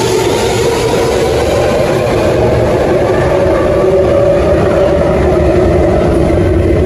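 Sydney Metro electric train pulling out of an underground platform and running away down the tunnel, with a steady whine of several tones over a rumble.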